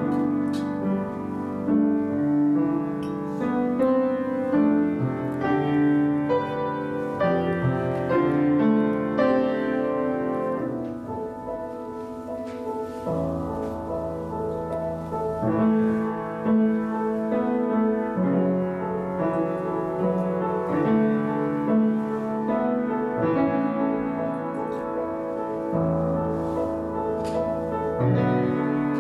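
Slow instrumental keyboard music, without singing: held chords that change every second or two.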